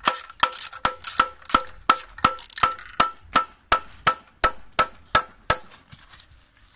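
Evenly spaced metal-on-metal strikes, about three a second, each with a short ring, on the oil pan of a Chevrolet Spark engine as it is worked loose. They stop about five and a half seconds in.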